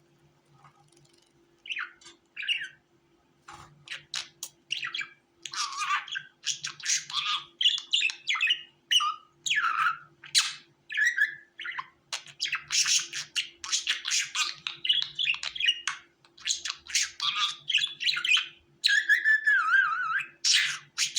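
Budgerigar chirping and warbling in quick, varied calls, starting about two seconds in and becoming almost continuous after a few more seconds.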